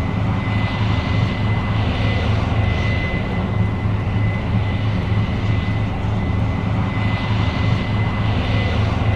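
New Holland CR 7.90 combine running steadily while harvesting corn: a deep, even engine hum with a thin, steady high whine over it.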